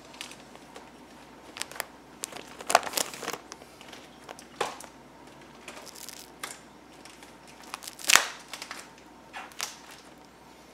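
Plastic bag crinkling and corrugated cardboard rubbing as a cardboard crossbar is worked down over a bagged flat-screen TV, in scattered short rustles; the loudest comes about eight seconds in.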